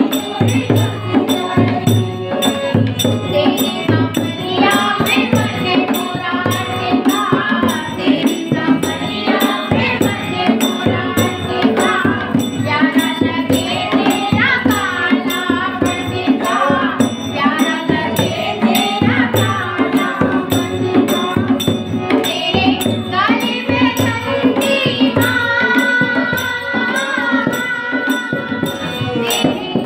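A group of women singing a Hindi Krishna bhajan in unison, keeping a steady beat with hand claps.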